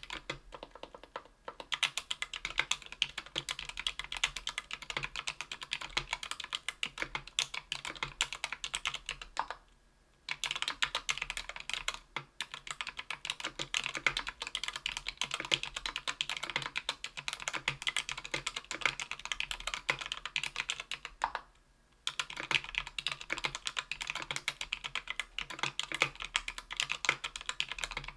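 Fast continuous typing on a Tofu 60% aluminium keyboard with Krytox 205g0-lubed CannonKeys Lilac tactile 65g switches on an aluminium plate. The keystrokes come in a rapid, steady stream, with two short breaks, about a third of the way in and about three quarters of the way in.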